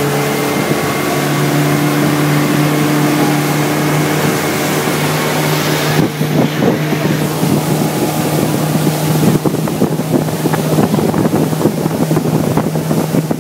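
Tour boat's motor running steadily under way, a constant low drone with the rush of wind and water. From about six seconds in, wind buffets the microphone.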